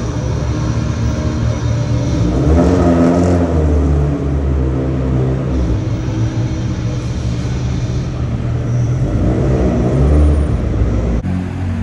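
Rally car engines running loudly, with the pitch swelling as a car revs about three seconds in and again about ten seconds in. The sound breaks off abruptly near the end.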